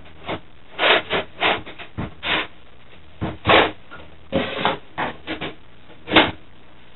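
Metal-on-metal scraping and knocking as an optical drive is worked out of a desktop PC case's drive bay and set down: an irregular string of short scrapes and clunks, the loudest knock near the end.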